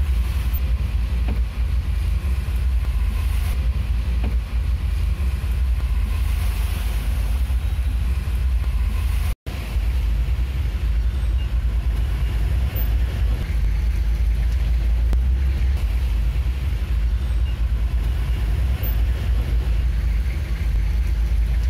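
Steady low engine rumble heard from inside a vehicle's cab while it idles and creeps in traffic, with an even hiss of rain and wet road over it. The sound breaks off for an instant about nine seconds in.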